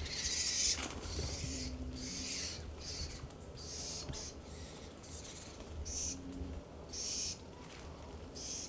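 Juvenile California scrub jays giving a series of harsh, rasping calls, about one a second.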